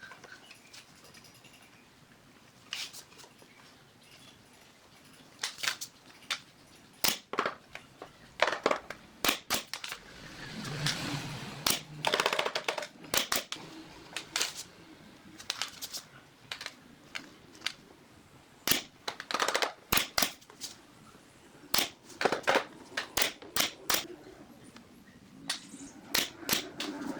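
Irregular sharp knocks and clicks of hands-on workshop work with wood, coming in small clusters, with a stretch of rougher scraping noise about ten seconds in.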